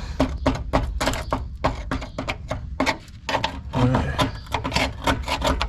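Hand-tool work on the rusted parts of a truck door: a quick run of short scraping strokes, about four a second.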